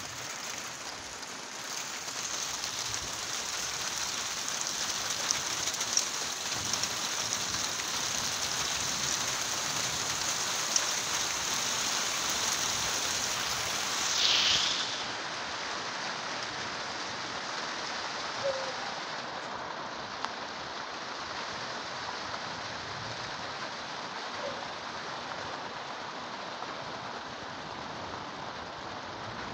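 Rain falling steadily during a thunderstorm, with a few sharp drop ticks close by. About halfway through, a brief louder hiss swells and fades.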